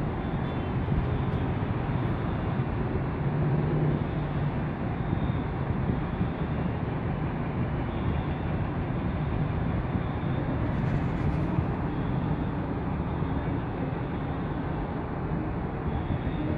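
Steady low rumble of a vehicle in motion, with a faint low hum and no distinct events.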